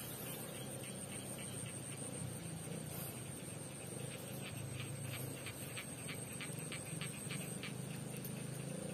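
Faint rice-paddy ambience: a steady high-pitched insect drone over a low hum, with a run of faint irregular ticking through the middle.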